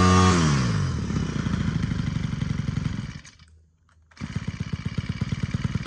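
Honda GX25 25cc four-stroke brush cutter engine coming off full throttle, its pitch falling quickly, then idling with even, rapid firing pulses. The sound breaks off for under a second in the middle and the idle resumes.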